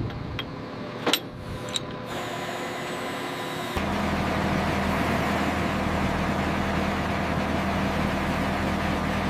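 A few sharp clanks from rigging hardware, then about four seconds in a heavy machine's engine starts running with a steady low drone.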